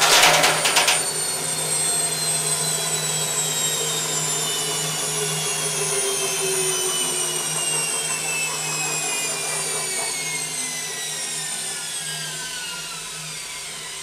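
Stripped-down washing machine's drum and motor spinning down from a spin: loud rattling stops about a second in, then a whine falls steadily in pitch as the drum slows, over a steady low hum.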